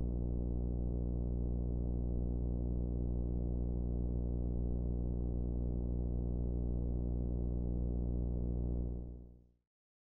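A steady, low synthesizer drone with no rhythm or melody, fading out about nine seconds in.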